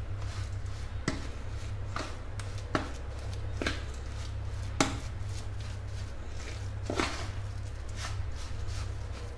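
Steel spoon stirring a thick, crumbly batter of ground samak rice and sabudana with curd in a stainless steel bowl. It scrapes through the batter with irregular sharp clinks of spoon on bowl, loudest about five and seven seconds in, over a steady low hum.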